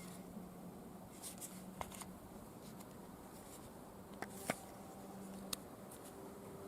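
A few faint, sharp clicks over a steady low hum, the loudest about four and a half seconds in. No shot is fired.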